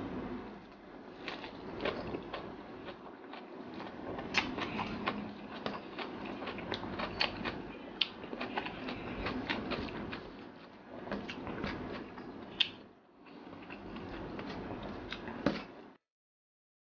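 Close-miked chewing of mouthfuls of rice eaten by hand, with frequent wet mouth clicks and lip smacks. The sound cuts off abruptly near the end.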